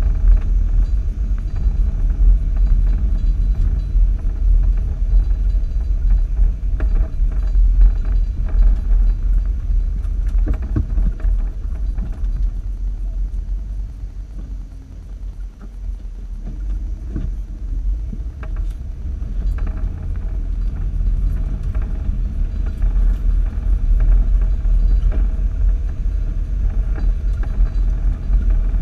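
Steady low rumble of a 4x4's engine and tyres heard from inside the cab as it drives slowly along a rutted dirt trail, with scattered knocks and rattles from the body over the bumps. About halfway through it eases off and goes quieter for a couple of seconds, then picks up again.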